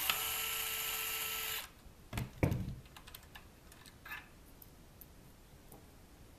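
DeWalt cordless driver spinning steadily for about a second and a half as it backs out a bearing-shield screw on a kayak pedal drive, then stopping. A couple of thumps follow, the loudest sound here, then light clicks of small screws and metal parts handled on the bench.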